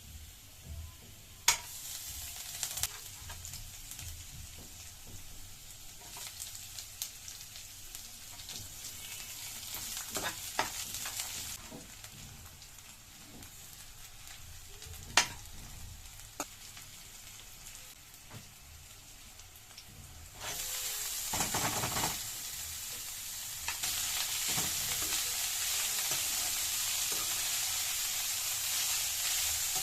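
Food frying in hot oil in a pan: a steady sizzle with a few sharp clicks of a utensil against the pan. About twenty seconds in the sizzle jumps much louder, and it rises again a few seconds later.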